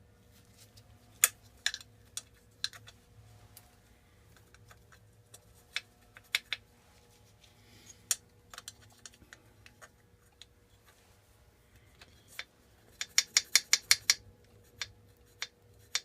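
Sharp metallic clicks and taps from the valve tappets and small parts of a Briggs & Stratton engine being worked by hand. The clicks come singly and scattered at first, then in a quick run of about a dozen near the end.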